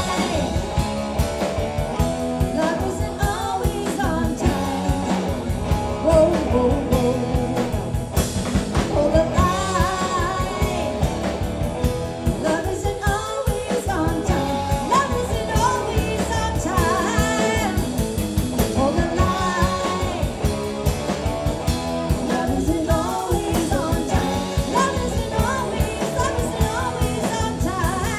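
Live rock band playing: a woman sings lead over electric guitar, bass guitar and a drum kit keeping a steady beat.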